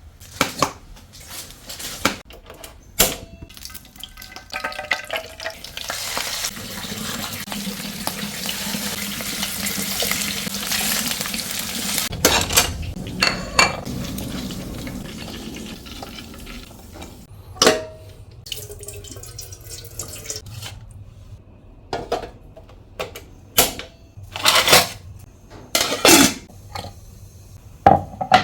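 Kitchen sounds: dishes and pots knocking and clattering, with water running from a tap for about ten seconds in the middle.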